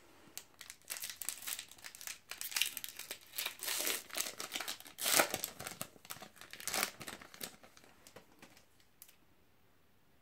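Foil wrapper of a trading-card booster pack crinkling and tearing as it is pulled open, in quick crackly bursts that are loudest about five seconds in and die away by about eight seconds.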